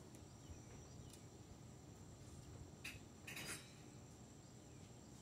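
Near silence: faint steady trilling of crickets, with two short rustles about three seconds in.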